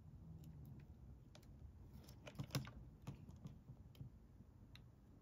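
Faint, scattered light clicks and taps of small electronic parts being handled by hand on a desk, with a few louder clicks about two seconds in.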